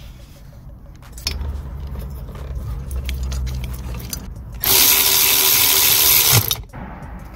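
Power tool driving a socket on a long extension, running in a bolt that anchors the new coolant pipe: one burst of just under two seconds that stops suddenly, a few seconds after a low steady hum.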